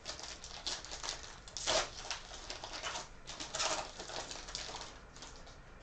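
Foil packs of football trading cards and the cards themselves being handled, crinkling and rustling in a series of short, irregular scratchy sounds, with two louder ones about two and four seconds in.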